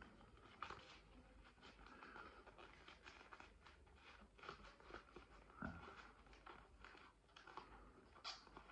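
Faint rustling and soft ticks of handling, close to silence: folded paper banknotes and a leather card wallet being fiddled with as the notes are slid in.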